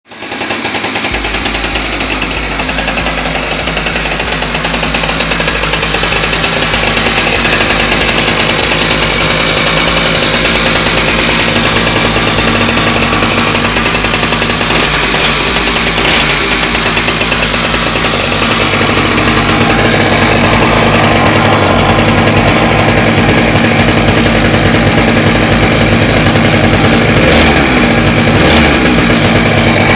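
Small two-stroke Ryobi string-trimmer engine running at high speed with a steady buzz, driving the propeller of a motorized inner tube. Its pitch briefly sags and comes back up about halfway through and again near the end.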